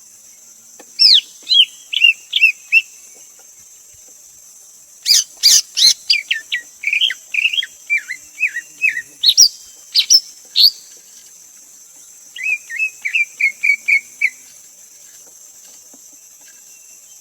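Greater green leafbird singing: three bursts of quick, sweet whistled and chirping notes, the middle phrase the longest and loudest, with pauses between.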